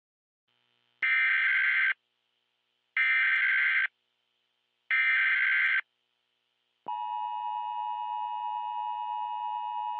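Emergency Alert System header: three one-second bursts of warbling digital data tones about two seconds apart, then the steady two-tone EAS attention signal starting about seven seconds in.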